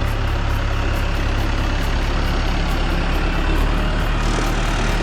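A large vehicle engine idling steadily with a low, even rumble.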